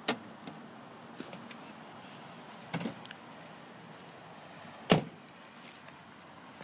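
A Toyota Prius's car door: the latch clicks open near the start, a couple of knocks follow just before three seconds in, and the door is slammed shut about five seconds in, the loudest sound.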